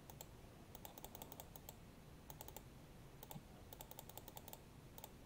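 Faint computer clicking, in quick runs of several sharp clicks at a time, over near silence.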